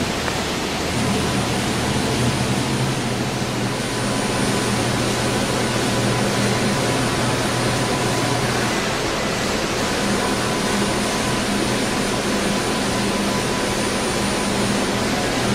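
SmartShop CNC router running: a steady loud roar with a low hum. A faint high whine comes in about a second in.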